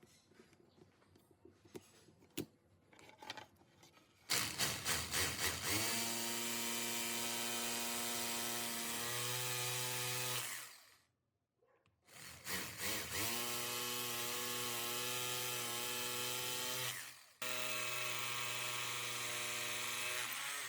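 Bosch hammer drill (rotary hammer) motor switched on about four seconds in, running steadily at speed, then switched off. It is restarted a moment later and runs on, with a brief dip near the end. Faint handling clicks come before the first start.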